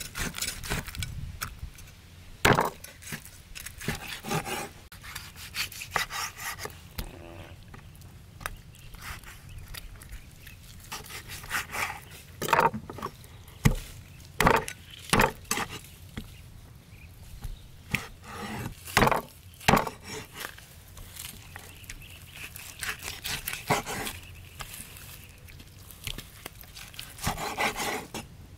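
Knife and cleaver cutting a cooked pig's head on a chopping board: blade scraping and slicing through skin and meat, broken by irregular sharp chops, with a cluster of hard chops in the middle.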